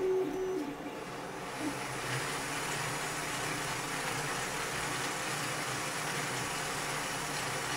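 3D-printed scale model of a 1947 Ford flathead V8 running under power, its plastic fan and moving parts turning with a steady mechanical whir that sets in a second or two in.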